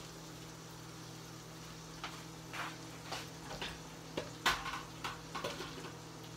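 Scattered knocks and clatter of kitchen things being handled, starting about two seconds in, with the sharpest knock near the middle, over a steady low appliance hum.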